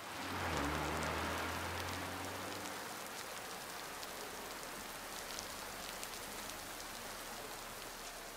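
Steady rain falling hard on a street, with a car engine's low hum fading away in the first two or three seconds.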